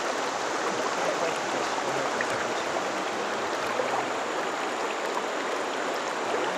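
Shallow river flowing over a stony bed: a steady, even rush of moving water.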